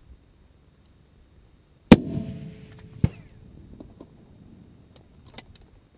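A single shot from a .50-calibre rifle: one very loud, sharp blast about two seconds in, with a ringing tail. A second sharp crack follows about a second later, then a few light clicks.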